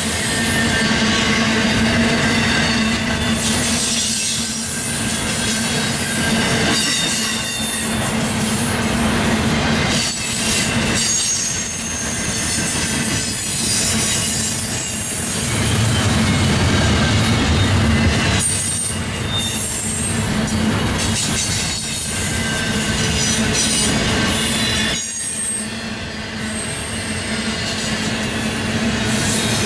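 Double-stack intermodal freight cars rolling past at trackside: a continuous loud rumble of steel wheels on rail, with high-pitched wheel squeals coming and going.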